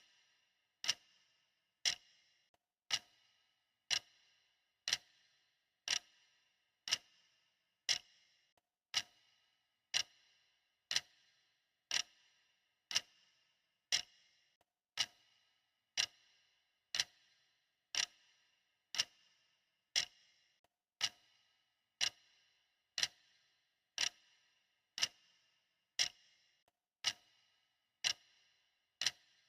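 Steady clock ticking, one sharp tick each second, each with a short ringing tail.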